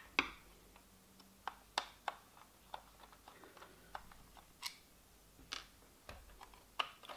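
Scattered light clicks and ticks of a screwdriver and hard plastic parts being handled while a radio-controlled truck's plastic chassis is taken apart. The clicks come singly and at irregular intervals, about nine in all.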